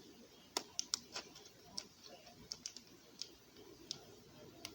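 Light, irregular clicks and taps, about ten of them, of pills and a plastic pill pack being handled.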